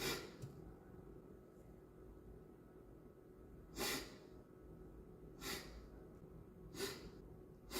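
A man sniffling: several short sharp sniffs through the nose, spaced a second or more apart.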